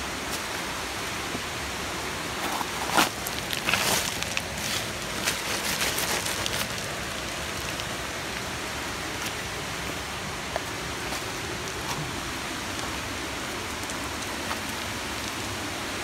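Steady rush of falling water from a nearby waterfall and stream. Between about three and seven seconds in, footsteps crunch and scrape on loose stones and gravel.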